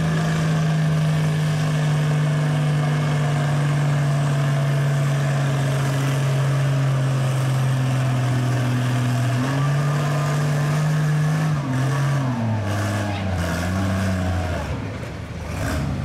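Farm pulling tractor's engine running at steady high revs, then throttling back about ten seconds in, its pitch stepping down until it settles near the end.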